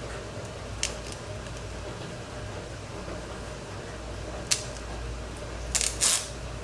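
Grip tape being handled and pressed onto a plastic hula hoop: a click about a second in, a sharp tap about four and a half seconds in, and a short rustling rip near the end, the loudest sound. A steady low room hum runs underneath.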